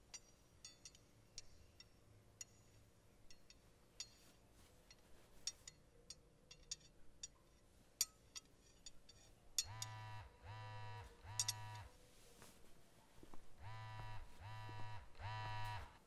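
Smartphone ringing and buzzing on a wooden workbench: three short rings, a pause, then three more, each with the vibration rattling against the bench. Before the ringing, faint scattered clicks and taps.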